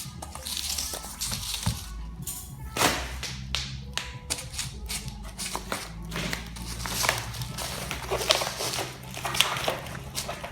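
Background music with a steady low bass, over many irregular sharp clicks and taps, as of plastic parts being handled.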